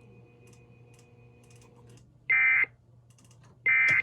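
Two short bursts of Emergency Alert System SAME data tones, the End of Message code that closes the alert: a shrill digital buzz, each lasting about a third of a second, the first about two seconds in and the second about a second and a half later. Faint keyboard typing clicks and a low hum run underneath.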